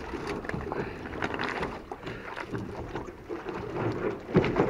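Water splashing and irregular light knocks and shuffling in a small boat as it pushes off, with no motor running.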